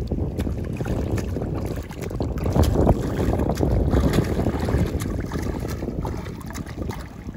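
Shallow water splashing as feet kick at the surface, with wind buffeting the microphone.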